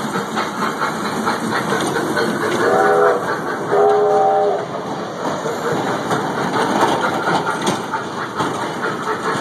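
Train rolling along the track with a steady rumble and the clickety-clack of wheels over rail joints. The horn sounds twice, a short blast about three seconds in and a slightly longer one about a second later.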